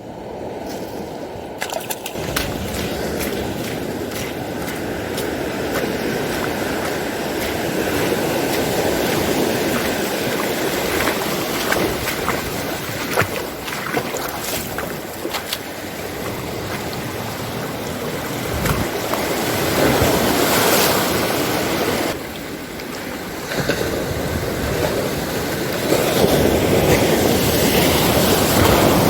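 Ocean surf washing in, swelling and easing in waves, with a few sharp clicks over it.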